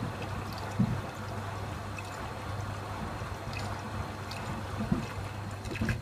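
Beko front-loading washing machine filling for a rinse: water pouring and splashing into the turning drum over a steady low hum, with a few soft thuds of wet laundry tumbling. The inflow of water cuts off at the very end.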